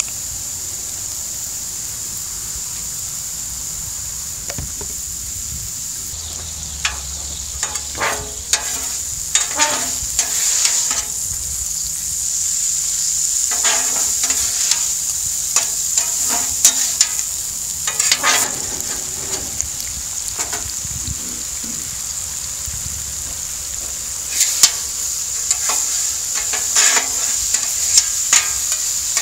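Chopped peppers and onions sizzling in bacon grease on a flat-top griddle, a steady hiss. From about six seconds in, metal spatulas scrape and clack on the steel in bunches as the vegetables are tossed and stirred.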